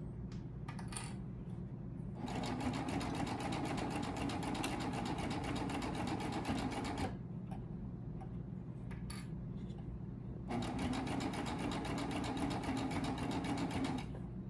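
Baby Lock Triumph serger stitching knit binding onto a mask edge in two runs of about five and three and a half seconds, with a pause between them. Each run is a fast, even stitching rattle that starts and stops abruptly. Before the first run there are a few light handling clicks.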